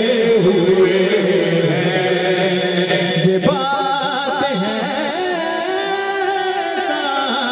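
A man's voice singing a devotional manqabat in praise of Ali through a microphone and loudspeakers. He draws out long, wavering notes without clear words, and a new, higher phrase begins about halfway through.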